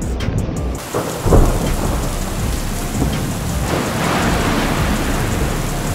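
Storm gale noise: a dense rushing hiss with low rumbling gusts, loudest about a second in.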